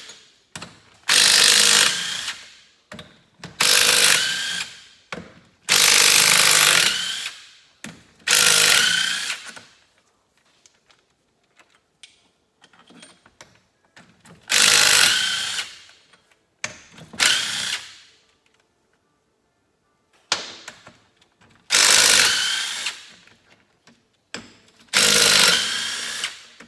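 Cordless DeWalt impact driver running in short bursts, about eight of them, each a second or two long, backing out the 14 mm bolts of a Suzuki GT500 two-stroke crankcase. There are longer pauses between bursts about halfway through.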